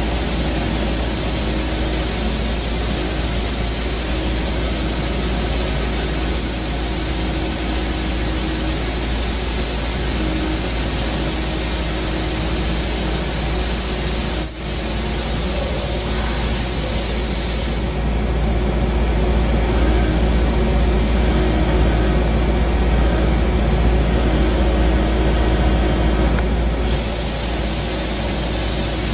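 Milling machine side milling with an end mill: a steady, loud hiss of cutting and coolant spray over a low machine hum. A sharp click comes about halfway through, and for several seconds past the middle the high hiss drops away before returning.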